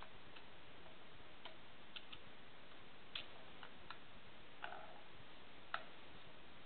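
Hands working on a handmade noisebox of coil springs, metal rods and rubber bands on a metal box: about nine scattered small metallic clicks and taps, a few with a brief ring, the sharpest toward the end, over a steady faint hiss.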